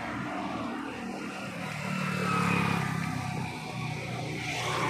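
A motor vehicle's engine and tyre noise passing on the road, swelling to its loudest about halfway through and then easing off.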